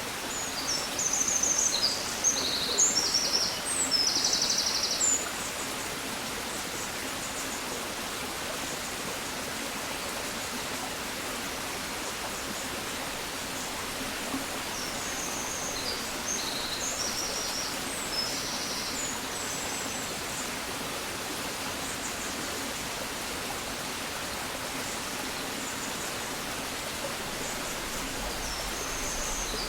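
A songbird sings short phrases of high, quick notes three times, near the start, around the middle and near the end, over a steady rushing hiss of the countryside dawn ambience.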